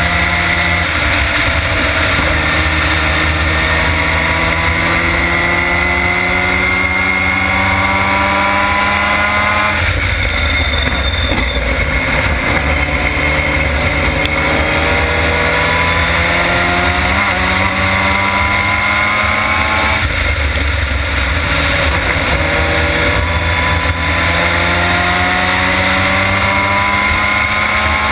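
Onboard sound of a Formula Mazda race car's rotary engine at racing speed, under heavy wind buffeting on the camera. The engine note climbs steadily in pitch through long pulls and drops abruptly about ten and twenty seconds in.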